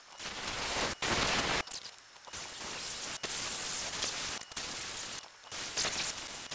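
Cordless drill running in repeated bursts of about a second each with short pauses between, drilling out a stainless steel rivet on an aircraft firewall so a bolt can replace it.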